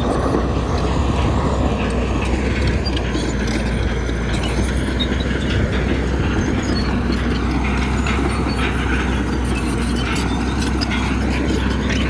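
Heavy diesel earthmoving machine running steadily, a deep even engine drone with some faint metallic clatter over it.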